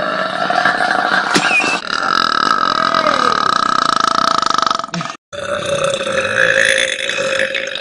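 Long drawn-out burps from young women, one after another. Each holds a steady pitch for several seconds, and the clips are cut together with abrupt breaks about two seconds in and about five seconds in.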